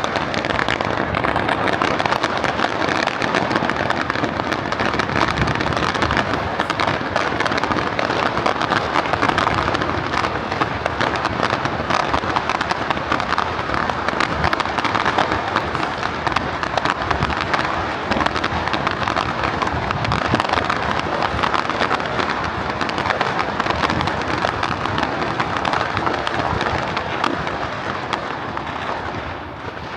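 Fireworks display: a dense, unbroken barrage of bangs and crackling, easing off near the end.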